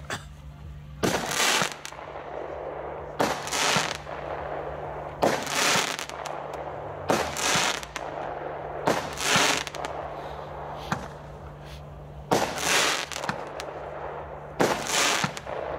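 A 30-shot, 30 mm-calibre compound fireworks battery firing its shots one by one, about every two seconds. Each shot is a loud noisy burst lasting under a second, and a fainter pop comes in between near the middle.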